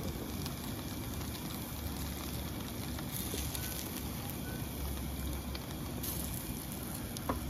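Paneer tikka skewers sizzling and crackling softly over glowing charcoal in a barbecue grill: a steady hiss with a few faint ticks.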